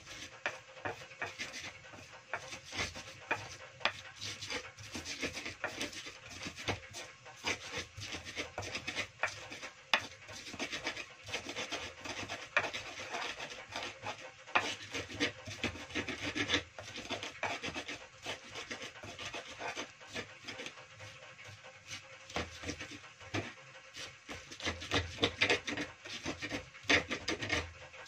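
Pestle grinding shallots, garlic and red chillies into a spice paste in a cobek (Indonesian mortar): a continuous run of irregular scraping and crushing strokes with frequent sharp knocks of pestle on mortar.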